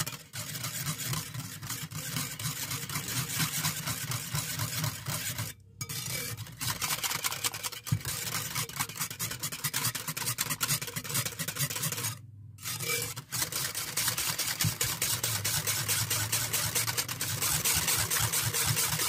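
Wire hand whisk beating chilled dairy cream in a bowl: rapid, even strokes scraping against the bowl, stopping briefly twice. The cream is being whipped toward stiff peaks.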